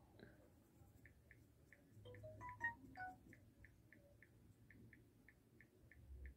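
Near silence with faint short high beeps repeating evenly about three times a second, and a brief run of notes at different pitches between two and three seconds in.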